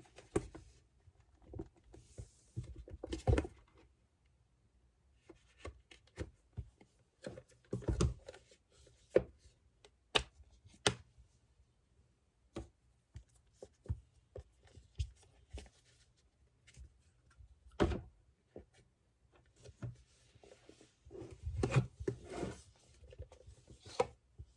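Irregular light taps, clicks and knocks of objects being handled on a hard surface, a few of them sharper and louder, typical of handling an iPad, its case and accessories.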